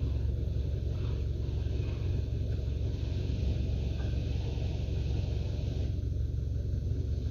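Steady low rumble of a Toyota Hilux's 1GD four-cylinder turbo-diesel engine idling.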